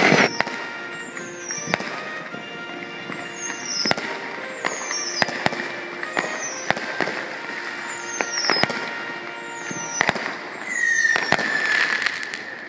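Aerial fireworks bursting: a loud bang right at the start, then repeated bangs and crackling pops, with short high falling whistles every second or two. Music plays along, with a clear whistle-like tone near the end.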